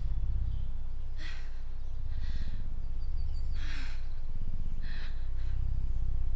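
A person breathing hard in short, noisy breaths about every second and a bit, five in all, over a low steady rumble.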